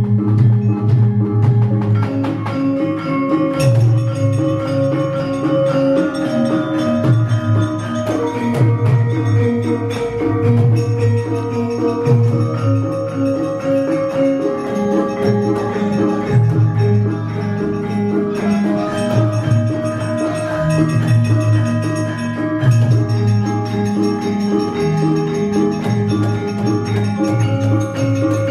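A Javanese gamelan ensemble playing: bonang kettle gongs and other bronze metallophones ring out steady pitched notes over a repeating pulse of kendang hand-drum strokes.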